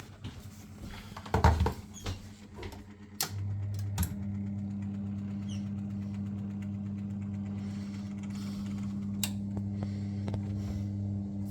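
A few knocks and clicks, then about three seconds in the boiler's central heating pump starts and runs with a steady low mains hum, on a boiler that is not firing.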